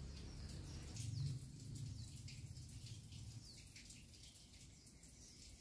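Faint outdoor ambience: small birds chirping now and then over a low rumble that swells about a second in and fades out a little after three seconds.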